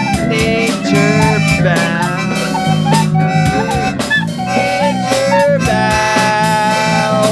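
Instrumental music: a wind-instrument lead melody with bending notes over a bass line and a steady drum beat.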